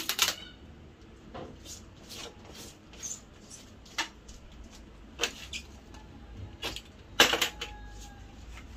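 Scattered taps, knocks and rustles of hands working black adhesive tape along the wooden edge of a large picture frame, the loudest knocks near the start and about seven seconds in.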